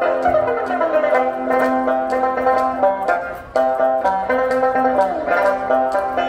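Live Northern Shaanxi folk music on traditional instruments: quick plucked notes over a steady held tone, with a short break about three and a half seconds in.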